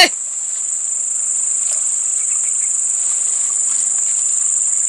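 A steady, high-pitched chorus of night insects shrilling without a break.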